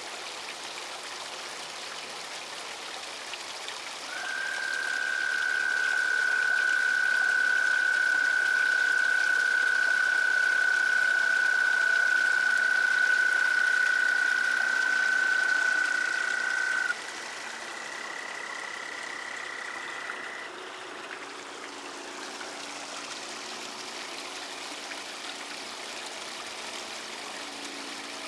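Frogs giving spring mating calls at a pond: one long, steady, high trill that runs for about thirteen seconds, joined near its end by a second, higher and fainter trill. Running pond water rushes steadily throughout.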